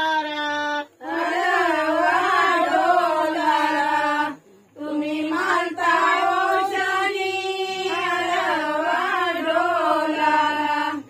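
Women singing a devotional song to welcome the goddess Gauri, unaccompanied, with long drawn-out notes. The singing breaks off briefly about a second in and again after about four and a half seconds, then stops abruptly at the end.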